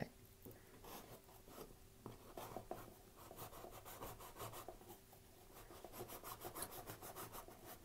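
Fingers scratching and picking at sticky packing tape on a cardboard box: faint, irregular scrapes and rubs, coming faster near the end.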